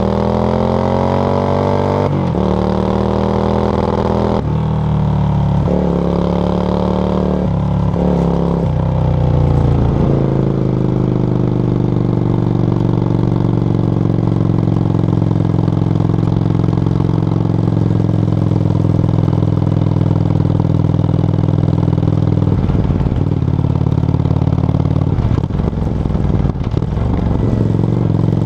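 Yamaha XV535 Virago's air-cooled V-twin through a SilverTail K02 aftermarket exhaust. It rises in pitch and drops back at each gear change, several times in the first ten seconds, then runs at a steady pitch while cruising.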